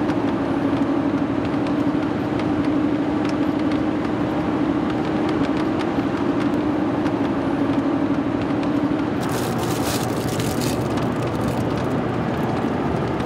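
Road noise inside a Chevrolet pickup's cab at highway speed: an even drone of tyres and engine with a steady low hum that stops about nine seconds in, followed by about a second and a half of crackling.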